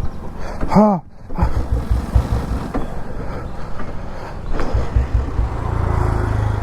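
Royal Enfield Bullet Electra 350's single-cylinder engine running unevenly, with irregular low thumps that become a steadier rumble near the end; the bike has a fuel-supply problem that keeps making it stall.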